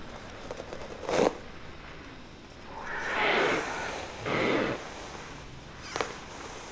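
Dancers' heavy breathing and body movement: two loud breathy rushes about three and four and a half seconds in, with a short knock about a second in and a sharp click near the end.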